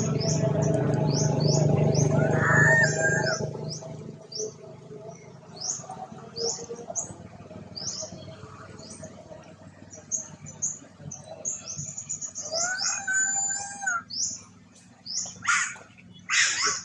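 A small bird chirping over and over in quick, high, short notes, with a couple of louder, fuller calls mixed in. A low rumble is the loudest thing at first and fades out about three and a half seconds in.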